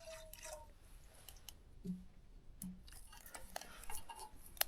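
Faint, scattered clicks and light taps, with a brief tone near the start and two short low hums around the middle.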